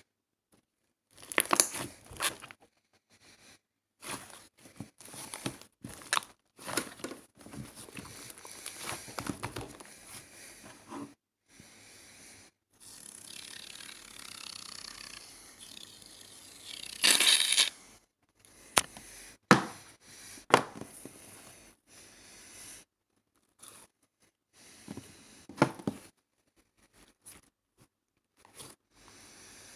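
Irregular rustling and crinkling handling noises with scattered sharp clicks and taps; the loudest is a short burst of rustling about two thirds of the way through.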